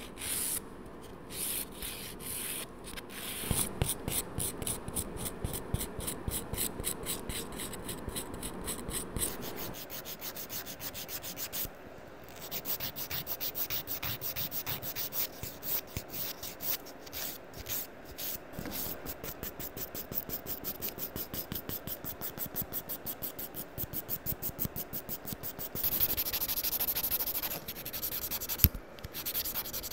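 Half-moon hand nail file rasping back and forth over a builder-gel nail extension, shaping it in quick, even strokes, several a second. Near the end the strokes run together into a steadier rasp, and there is a single sharp tap.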